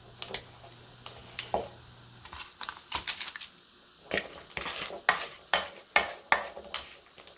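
Metal ice cream scoop clicking and scraping as cookie dough is scooped and dropped onto a parchment-lined sheet pan: an irregular string of sharp clicks and knocks, busier in the second half.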